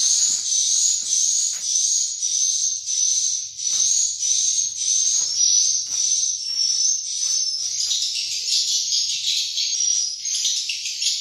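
Swiftlet calls filling a swiftlet house: high twittering chirps repeating about twice a second, each rising in pitch, turning into a denser chatter near the end. Faint clicks and knocks sound underneath.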